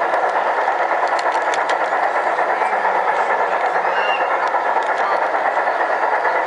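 G-scale model passenger train rolling past close by, a steady running rumble with a regular clicking rhythm from the wheels on the rail joints, over the din of a crowded exhibition hall.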